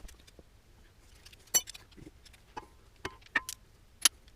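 Scattered metal clinks and taps of hand tools and bolts being handled, a few of them with a short ringing note, in no steady rhythm.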